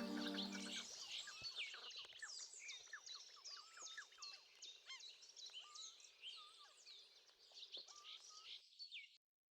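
Faint chorus of small birds chirping, many short overlapping calls and trills, with the last of soft music fading out in the first second; it cuts off suddenly near the end.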